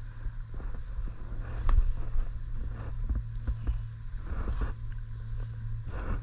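Low wind rumble on the microphone, with scattered short rustles and knocks throughout.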